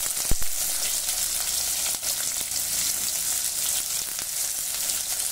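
Chopped onions frying in hot oil with whole spices in a kadai: a steady sizzling hiss. One sharp knock about a third of a second in.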